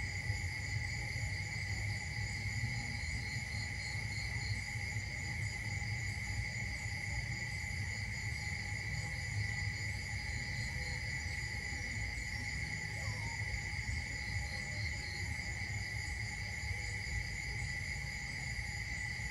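A steady, high-pitched insect chorus that keeps up without a break, with a low rumble underneath.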